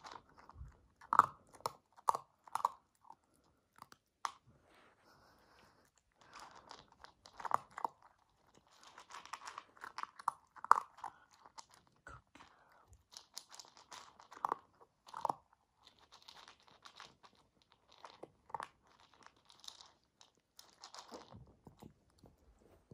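Siberian husky puppy eating dry kibble from a plastic tub: irregular crunching and chewing, with a few short pauses.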